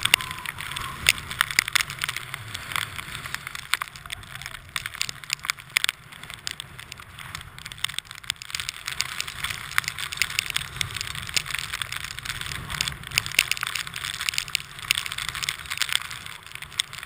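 Irregular crackling and clicking over a low rumble, picked up by a helmet-mounted GoPro during a chairlift ride.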